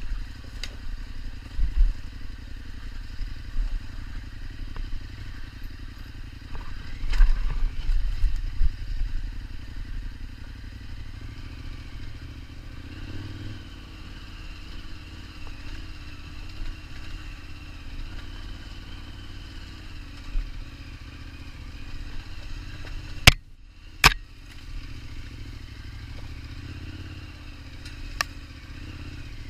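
KTM 1290 Super Adventure's V-twin engine running at low, steady revs while the bike is ridden, with low knocks and rattles, heaviest about a quarter of the way in. The engine note rises slightly a little under halfway through. Two sharp clicks come close together about three-quarters of the way through.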